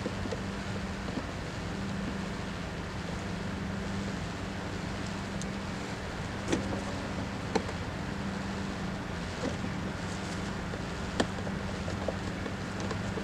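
Steady low hum over a noisy background, with a few sharp clicks, the loudest about 6.5, 7.5 and 11 seconds in.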